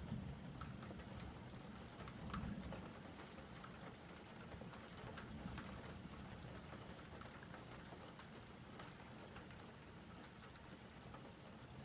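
Steady rain falling, with scattered drops ticking close by. A low rumble swells briefly at the start and again about two and a half seconds in.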